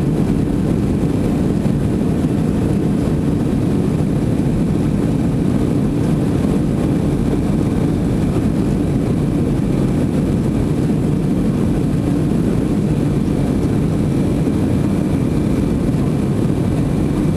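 Steady engine and airflow noise inside the cabin of a Tupolev Tu-204-300 airliner climbing out after takeoff, its two PS-90A turbofans at climb thrust. A faint steady whine sits on top of the deep rumble.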